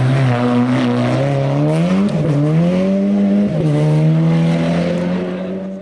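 Hillclimb race car engine at full throttle, its note climbing and then dropping sharply at gear changes about two seconds and three and a half seconds in.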